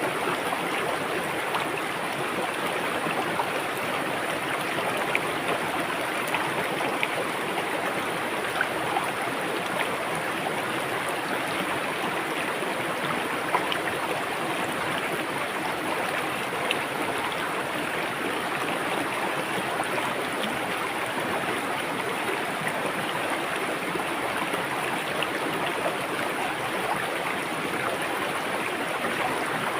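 River water flowing steadily over rocks, a constant rushing with small splashes and gurgles throughout.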